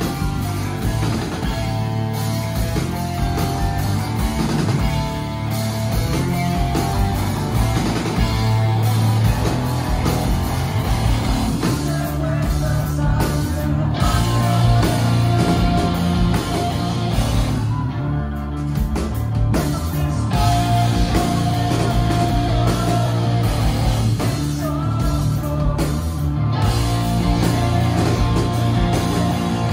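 Live post-hardcore band playing loud: electric guitars, bass and drum kit with a singer on the microphone, heard from the crowd. The band cuts out briefly twice about two-thirds of the way through.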